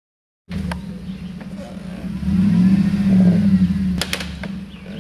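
Jeep Wrangler engine revving under load on a hill climb, its pitch rising a second or two in. Sharp cracks and clatter break through a few times, loudest near the end, from the worn Dana 30 front axle giving out under 35-inch tires.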